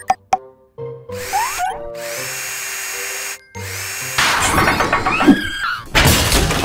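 Cartoon sound effect of a cordless power drill whirring in spurts, its pitch sliding up and down, over children's background music, with a loud burst of noise about six seconds in.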